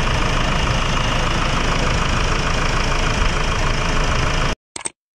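Hyundai Grand Starex engine idling steadily, its idler pulley bearings freshly replaced so the earlier grinding is gone. The sound cuts off suddenly near the end, followed by a brief tick.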